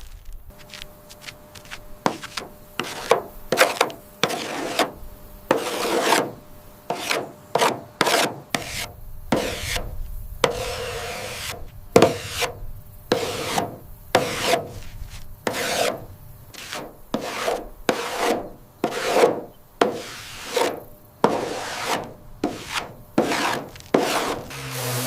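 Hand-tool scraping strokes rasping back and forth over a surface, about one or two short swipes a second, each of a different strength.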